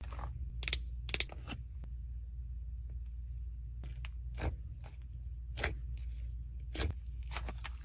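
Irregular sharp clicks and short scratchy crackles, about a dozen spread unevenly, over a steady low hum.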